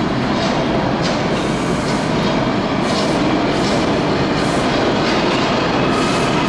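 Subway train of R179 cars approaching through a tunnel: a steady rumble of wheels on rails, with brief high clicks recurring every half second to a second.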